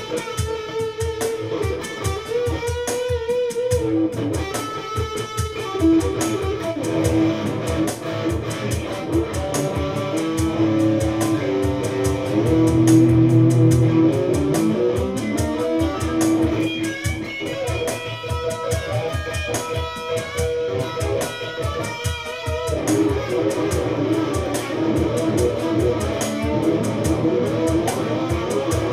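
Electric guitar played solo on its neck pickup, a dark tone with clear note definition: a run of quickly picked notes and phrases, swelling louder with low, held notes about halfway through.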